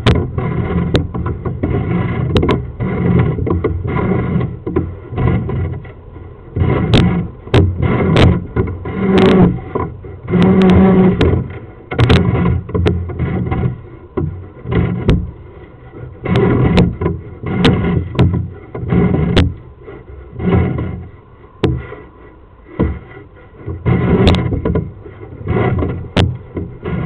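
Drain inspection camera's push rod being fed up a stormwater pipe in short pushes: irregular low scraping and knocking that comes and goes, with sharp clicks.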